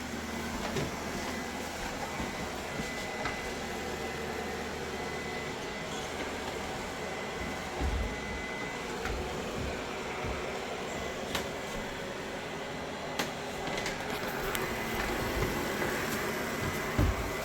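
Robot vacuum sweeper running: a steady motor hum with a faint high whine, with a few dull bumps and light clicks as it moves about.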